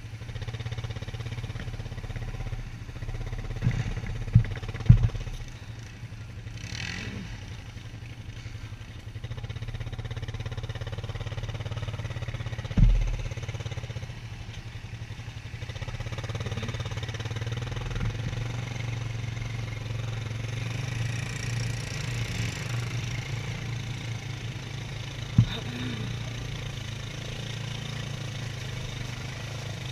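ATV engine running steadily at a low hum while riding a muddy trail, with a few sharp knocks: three close together about four to five seconds in, then single ones around thirteen and twenty-five seconds in.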